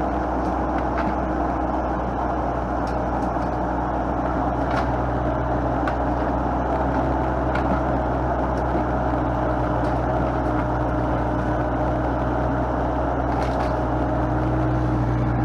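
Heavy equipment engine running at a steady speed, with a faint steady whine over it and a few light clicks.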